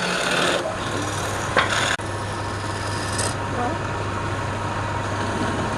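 Wood lathe running with a steady hum while a turning tool scrapes and cuts the spinning wood, with louder bursts of cutting near the start and about one and a half and three seconds in.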